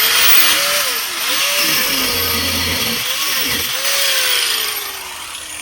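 A handheld power tool starts up and cuts into a seized stabilizer link on the rear suspension, its motor pitch dipping and recovering under load, then winding down near the end.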